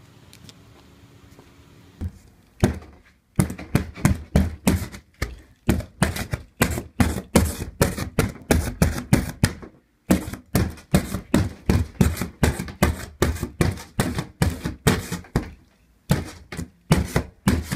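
A rapid series of sharp knocks, about two or three a second, keeping up a steady rhythm with a few short breaks.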